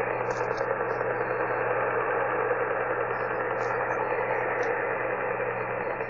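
Pulsed radar interference received on an HF amateur radio transceiver in LSB on the 40 m band: a steady, rapid pulsing noise that stays the same as the dial is tuned down the band. The uploader takes it for the Soviet Duga-3 over-the-horizon radar, the "Russian Woodpecker".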